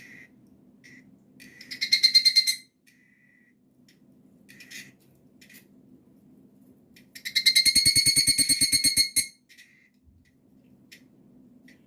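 Higurashi (evening cicada, Tanna japonensis) calling: a rapid series of ringing pulses about two seconds in, then a longer run of about two seconds near the middle, with fainter, shorter calls from other cicadas between, over a low steady hum.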